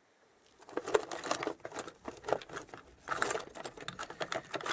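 Loose metal motorcycle parts clattering and clinking as a hand rummages through a box of spares, in quick runs of rattles with a short pause in the middle.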